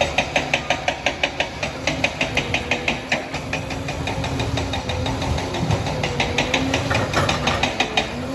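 Liebherr 746 bulldozer's diesel engine running, with a rapid, regular metallic clatter of about five or six strokes a second. The clatter eases in the middle and picks up again near the end.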